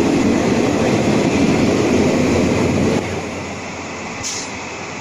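Express train's blue passenger coaches rolling past on the rails: a steady rumble of wheels on track. The level drops suddenly about three seconds in, and a short high hiss comes about a second later.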